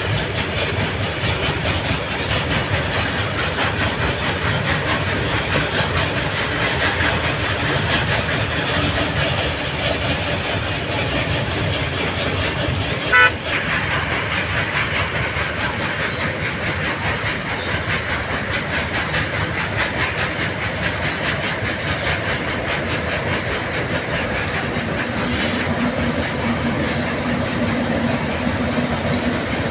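A long train of open freight wagons rolls slowly past with a steady rumble and clickety-clack of wheels on the rail joints. About thirteen seconds in there is one short, sharp toot. Near the end a steady low hum joins in as the pair of WAG-9HC electric locomotives comes by.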